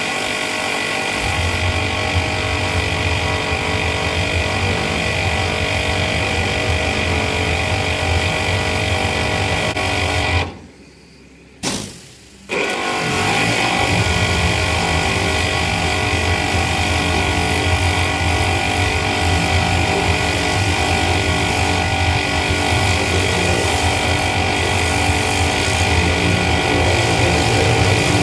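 Hot-water pressure washer running steadily, its motor and pump driving the spray against a steel tillage implement. The sound drops away for about two seconds around the middle, with a short blip in the gap, then carries on.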